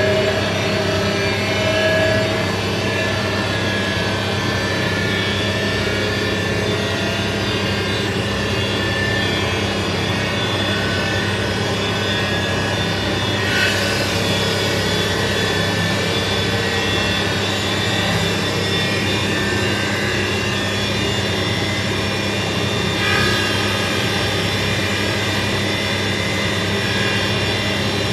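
Bosch Maxx 4 WFC 1200 front-loading washing machine on its first spin: the drum motor runs steadily with a hum and a whine. There is a brief click about halfway through and another near the end.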